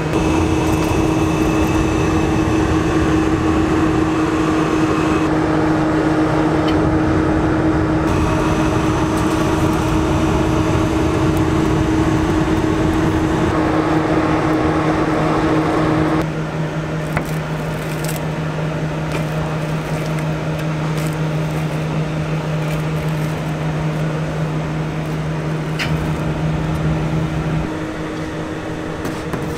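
Impinger conveyor pizza oven's blower fans running with a loud, steady hum. The hum gets quieter and thinner about halfway through, and a few light clicks follow.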